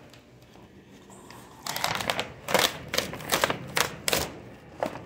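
Large sheets of painted paper crackling and rustling as they are handled and peeled apart where a watercolor-and-acrylic mixture has stuck them together. A run of sharp, irregular crackles starts a little under two seconds in.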